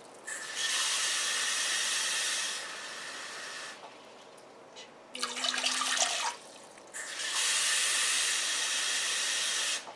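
Kitchen tap running twice, each time for about three seconds, as cups of water are measured out for a pot. Each run stops abruptly, and the first one drops in level shortly before it ends.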